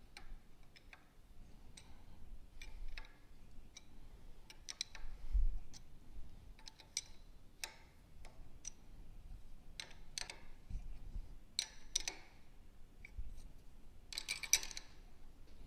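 Light, irregular metallic clicks and taps of small shock-absorber parts being handled and fitted onto a racing shock shaft held in a vise, with a few soft low thumps and a quick cluster of clinks near the end.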